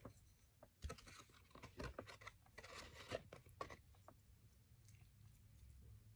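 Faint, scattered clicks and scrapes of a plastic fork working through noodles in a cardboard takeout box, with the box being handled.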